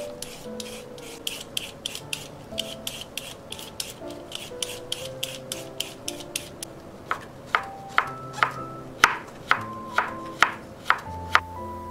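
Y-shaped vegetable peeler scraping thin ribbons off a burdock root, about two to three strokes a second. About seven seconds in it changes to a chef's knife cutting the ribbons into strips on a wooden cutting board: about ten sharp knocks, roughly two a second.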